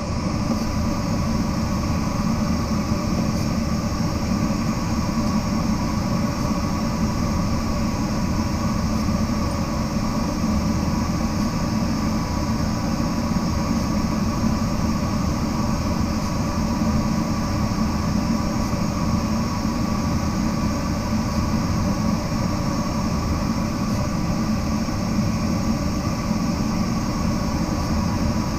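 Steady rush of airflow over a glider in flight, with faint steady tones running under it.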